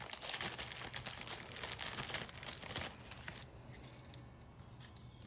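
A plastic zip-top bag crinkling and crackling as it is handled, for about three seconds, then dying away. A faint low steady hum runs underneath.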